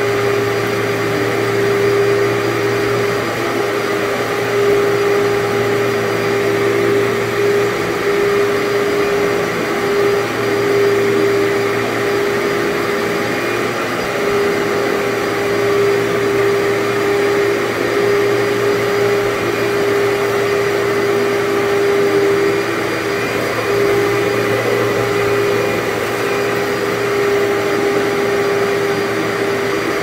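Commercial upright vacuum cleaner running steadily as it is pushed over carpet to lift dry soil, its motor giving an even hum with a strong steady whine.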